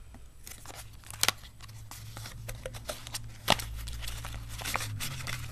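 Handling of a cardboard phone box and its plastic packaging: scattered rustles and small clicks, with two sharper snaps, one about a second in and one past the middle.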